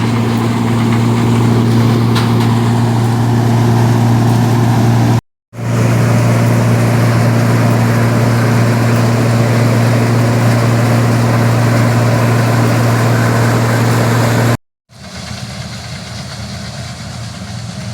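Rice combine harvester's engine running with a steady, loud drone. It drops out twice for a moment, about five and fifteen seconds in, and after the second break it is quieter.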